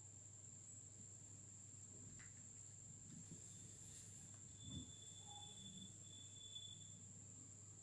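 Near silence: room tone with a steady faint high-pitched whine and low hum, and one faint soft knock a little under five seconds in.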